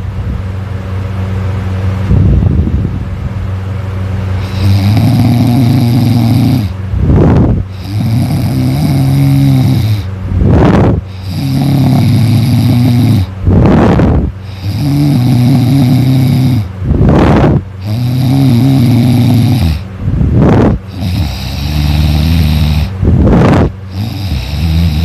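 A person snoring loudly in a steady rhythm: from about five seconds in, a long snore roughly every three seconds, each followed by a short rush of breath.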